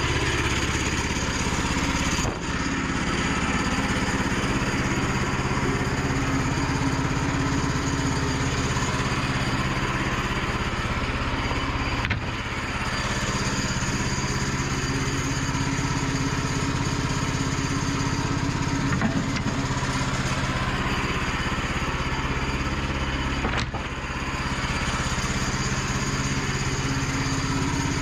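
Gasoline engine of a Woodland Mills portable bandsaw mill running steadily at working speed, with three abrupt breaks in the sound.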